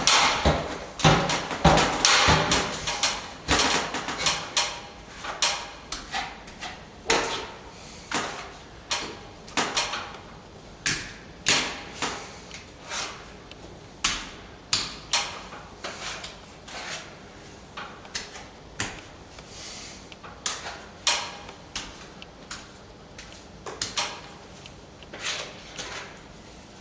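Cornice cement being spread on a ceiling with a steel plastering tool: repeated short scrapes and knocks, roughly one a second, a little louder near the start.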